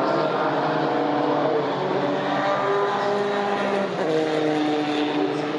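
Several vintage Formula 3 racing cars' four-cylinder engines running hard as they go by together. Their overlapping engine notes step up and down in pitch with gear changes and passing, and a strong new note comes in about four seconds in.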